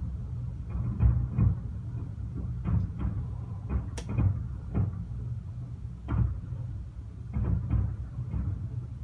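Aerial fireworks bursting: a string of dull booms at irregular intervals, sometimes two or three close together, with one sharp crack about four seconds in.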